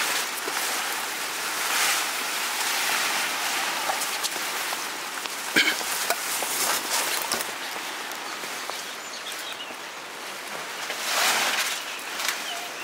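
Selroti batter deep-frying in hot oil: a steady sizzle that swells about two seconds in and again near the end. A sharp click comes around the middle.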